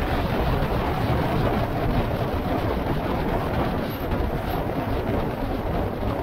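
Steady rumble of a vehicle ride under way, with wind buffeting the microphone over engine and road noise.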